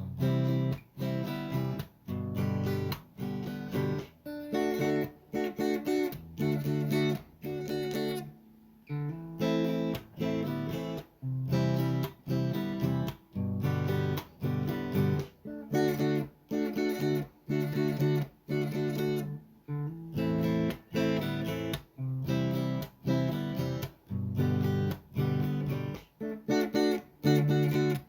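Background music: a strummed acoustic guitar playing in a steady rhythm.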